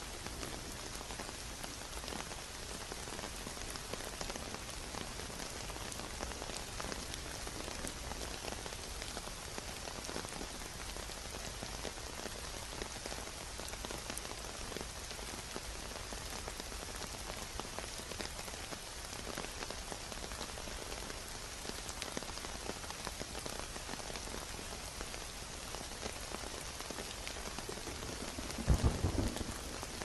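Steady rain falling, an even hiss dotted with the ticks of individual drops. Near the end a brief, louder low rumble breaks through.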